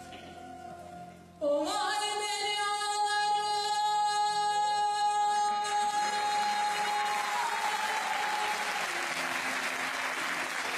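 Song: after a faint held note, the music comes in suddenly about one and a half seconds in on a long held high note that slides up at its start. A rushing noise swells under it from about six seconds.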